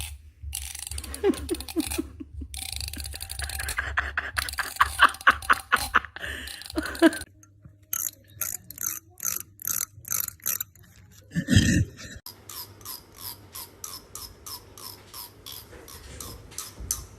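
The teeth of a comb being scratched over and over: runs of short ratcheting rasps, about three a second in the middle and quicker near the end. A brief low sound comes about eleven and a half seconds in.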